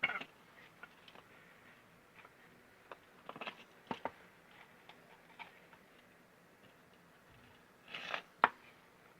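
Handling noises from dismantling a submersible drainage pump: scattered light clicks and scrapes of tools and pump parts, with a few louder knocks, the sharpest near the end.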